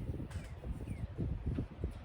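Low, irregular bumps and rustling of objects being handled and shifted close to the microphone.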